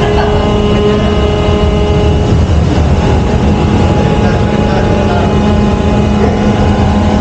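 Ship's steering gear machinery running: a loud, steady drone with a constant low hum and several steady tones above it.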